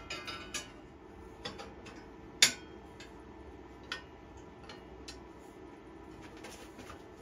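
Sheet steel plates clinking and knocking against a riveted steel frame as they are fitted by hand. A brief metallic ringing comes at the start, the sharpest knock about two and a half seconds in, and a few lighter taps after it.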